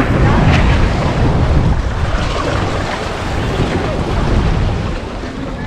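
Wind buffeting the microphone over the steady wash of sea waves, with a heavy low rumble.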